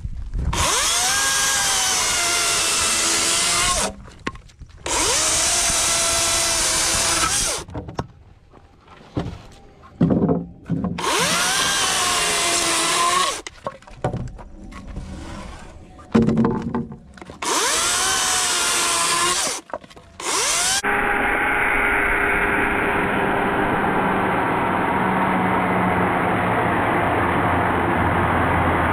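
DeWalt 60V FlexVolt 16-inch brushless battery chainsaw cutting through wood slabs in four short bursts. Each burst spins up with a rising motor whine under the chain's rasp, with brief pauses and knocks between cuts. From about two-thirds of the way in it runs in one long steady cut into the end of a log, with less hiss.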